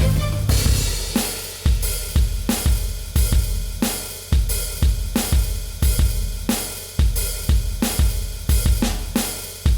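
Background music: a drum-kit beat with a steady kick, snare and cymbals, about one and a half hits a second.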